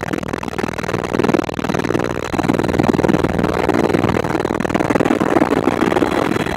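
Helicopter turbine engine and rotor running steadily, with a dense, fast pulsing drone that gets a little louder about two and a half seconds in.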